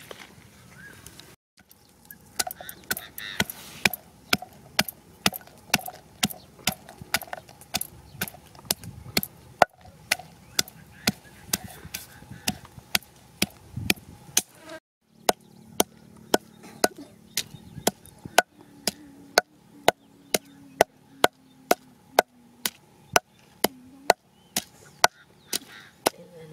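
Wooden pestle pounding garlic cloves and green chilies in a wooden mortar, a steady run of thuds about two a second with a few short breaks.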